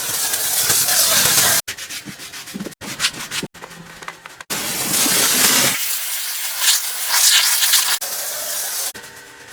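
Pressure washer spraying, a loud hissing spray in several short clips cut abruptly one after another, with quieter stretches in between.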